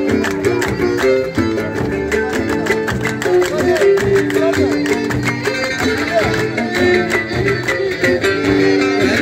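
Live traditional ensemble: a violin and an oud playing a melody over a steady, fast beat of hand-played frame drums.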